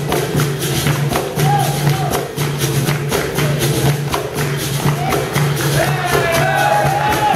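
Live capoeira bateria: berimbaus, pandeiros and an atabaque playing over hand clapping in a steady rhythm. Voices sing a call-and-response song, most clearly near the end.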